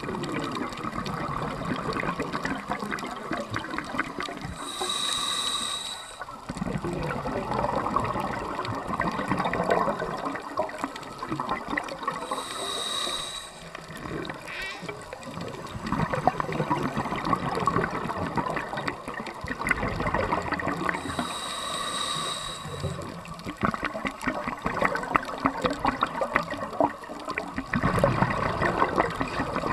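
Scuba regulator breathing heard underwater: a short hiss from the demand valve on each inhale, three times about eight seconds apart, with bubbling, gurgling exhaled air between.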